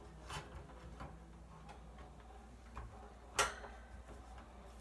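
Faint scattered clicks of a hamster climbing the wire bars of its cage, with one sharper knock about three and a half seconds in as the camera is moved.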